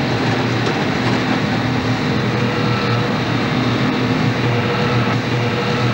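Heavy rail machinery running steadily: a dense, even mechanical noise with a low hum and a faint held tone.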